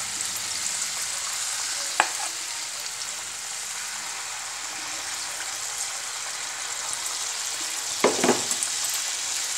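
Malpua batter frying in hot oil in a pan, a steady sizzle, with more batter poured into the oil partway through. A sharp click about two seconds in and a short knock near the end.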